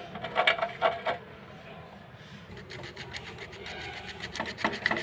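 Emery paper rubbed back and forth in quick strokes, about five a second, on the fixed iron core of a submersible pump starter's contactor, scouring off carbon and rust. The strokes ease off a little after a second in and pick up again toward the end.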